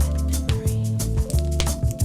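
Music with a steady beat: a deep bass line under held notes, with percussion strokes several times a second.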